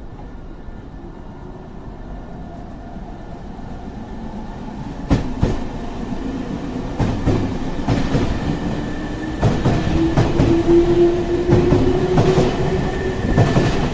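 Nankai electric commuter train running close past the platform. The rumble builds, and from about five seconds in its wheels clack over the rail joints, under a motor whine that climbs slightly in pitch.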